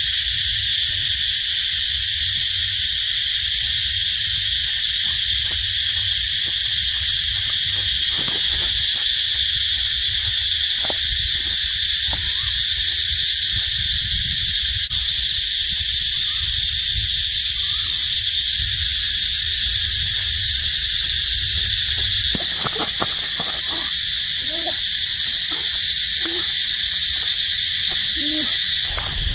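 Steady, unbroken high-pitched chorus of forest insects, with a low rumble underneath. A few short, faint low calls come near the end.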